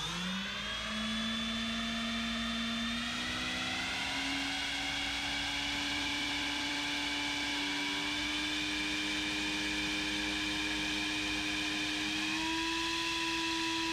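Brushless motor spinning a three-blade propeller fitted with a 3D-printed PLA guard ring, starting with a quick rising whine and then running steadily. The pitch steps up about three and a half seconds in and again near the end as the throttle is raised.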